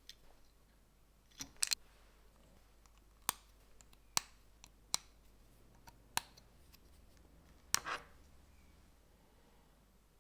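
Small plastic LEGO pieces clicking as they are pressed together: about ten sharp, separate clicks at irregular intervals, a few in quick pairs.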